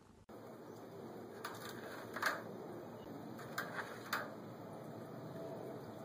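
Faint steady background hiss with a handful of short, sharp clicks, the loudest a little over two seconds in.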